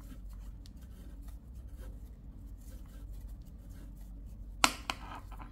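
Faint rubbing and scratching of flat polyester cord drawn through stitches with a metal crochet hook, over a low steady hum. A brief louder sound comes near the end.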